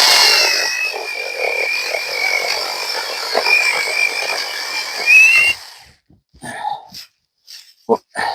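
Battery-powered electric chainsaw cutting a branch: a steady high whine from the motor and chain under load, which rises briefly in pitch and then stops about five and a half seconds in. A few light knocks follow.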